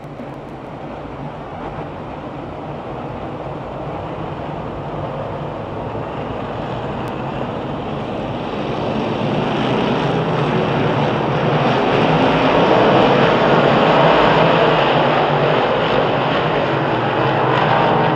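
Field of 358 small-block V8 dirt modifieds circling the track under caution, their engines running together as a dense drone that grows louder over about a dozen seconds, then eases slightly near the end.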